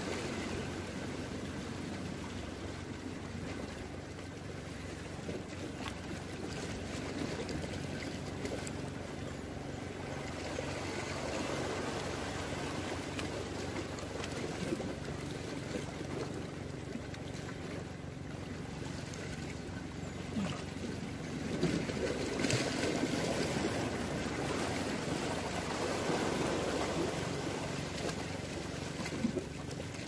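Sea waves washing against a rocky shoreline with wind on the microphone, a steady wash that swells louder a few times as bigger waves come in.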